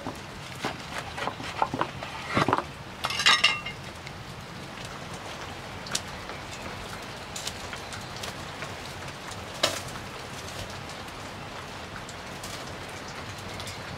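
Wood fire crackling with a steady hiss and scattered sharp pops. Between about one and a half and three and a half seconds in comes a cluster of knocks and ringing metal clinks, like a knife and cutlery against a plate.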